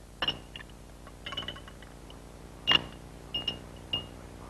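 Laboratory glassware clinking as bottles and tubes are handled: about half a dozen light clinks with a short ringing tone, the loudest about a quarter second in and near the middle, over a faint steady hum.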